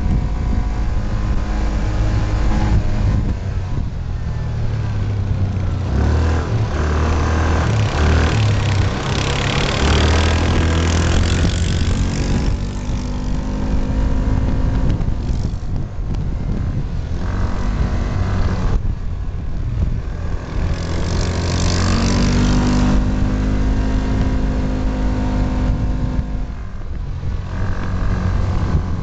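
Yamaha Rhino side-by-side's engine running while driving on a gravel road, heard from the driver's seat, its pitch rising and falling with the throttle. Stretches of rushing tyre and road noise come and go.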